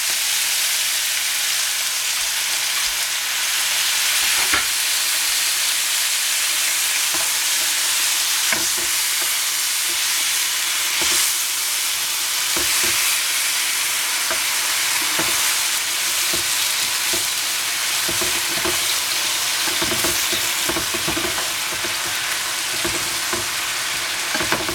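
Swiss chard and mushrooms sizzling steadily in a frying pan with a little water added. From a few seconds in, two wooden spatulas stir and toss the greens, knocking and scraping against the pan, more often in the second half.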